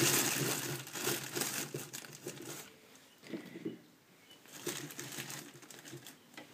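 Plastic kitchenware being handled: a cutting board and tub pulled out and moved, making a crinkling rustle for the first couple of seconds, then a few shorter rattles.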